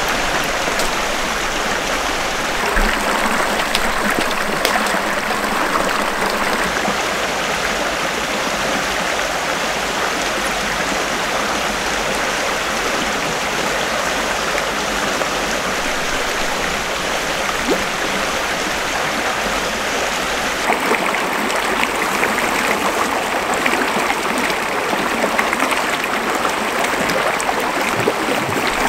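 Shallow, rocky mountain creek running steadily over stones. The rushing sound changes in tone about two-thirds of the way through.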